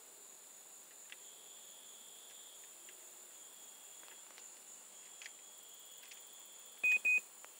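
Steady high-pitched chirring of crickets and other night insects. Near the end come two short, loud, same-pitched electronic beeps in quick succession.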